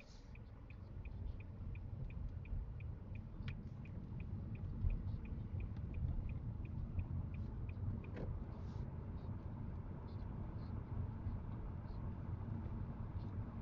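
Car pulling away from a standstill, heard from inside the cabin: low engine and road rumble grows louder as it speeds up. A turn signal ticks steadily about four times a second through the turn and stops about eight seconds in as the indicator cancels.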